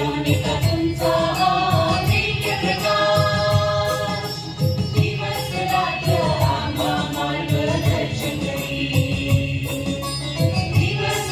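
A choir singing over keyboard accompaniment and a steady beat, amplified through a PA system.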